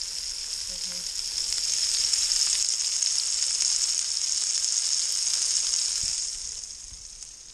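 Deer steak sizzling in a hot cast iron skillet, a steady high hiss with fine crackle. The sizzle grows louder about two seconds in and drops off near the end.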